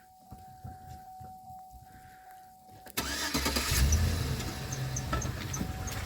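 GMC Yukon SUV engine starting about three seconds in, flaring up, then settling into a steady idle. Before it starts, a steady single-pitched tone sounds.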